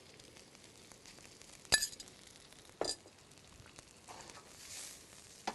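Two ringing clinks of a utensil against a dish or pan, a louder one and a softer one about a second later, followed by a faint sizzle of XO sauce in the hot pan.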